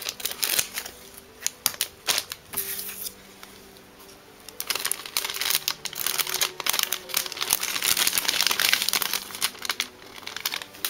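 Plastic wrapper of a Pokémon jumbo card pack crinkling as it is snipped open with scissors and handled. A run of sharp clicks and crackles comes first, then a long, dense crinkle from about five to nine and a half seconds in.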